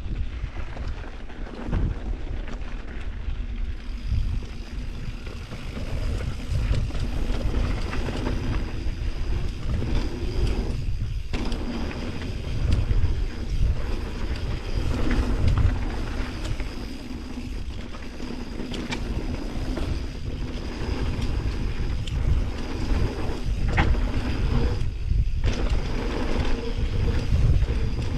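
Wind rushing and buffeting on the microphone of a camera moving at speed, a deep rumble that swells and eases, with scattered sharp rattles and knocks.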